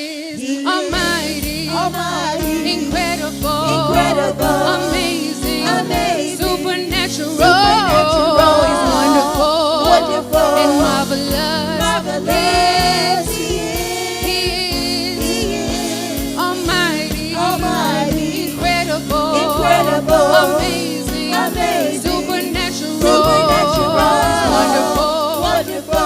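Gospel praise music: singers with a backing band holding and ornamenting long sung notes over steady chords and bass.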